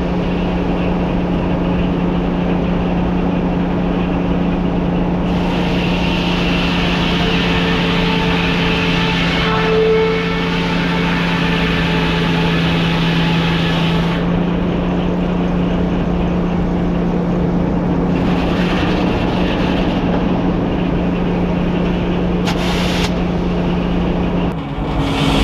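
Old Frick sawmill running: a steady mechanical drone with a constant low hum, turning brighter and hissier for a stretch from about five to fourteen seconds in, and again briefly later.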